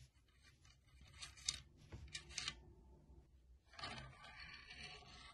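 Faint handling noise from M1 Garand rifle parts being worked by hand: a light click about a second and a half in, then brief scrapes, and a longer stretch of scraping and rubbing near the end.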